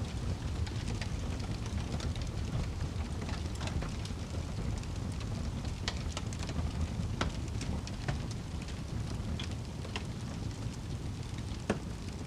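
Wood fire burning in a fireplace: a steady low rumble of flames with irregular sharp crackles and pops from the logs, a few louder snaps among them, one of the loudest near the end.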